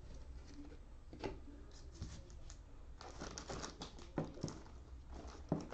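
Faint rustling and soft clicks of sleeved trading cards being handled and stacked, plastic penny sleeves crinkling, with the handling getting busier about halfway through.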